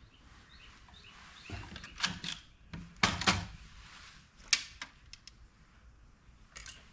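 MEC Grabber shotshell reloading press being worked by hand: a string of sharp metal clicks and clunks as the shell plate is indexed and hulls are handled, the loudest knocks about three seconds in and again about four and a half seconds in.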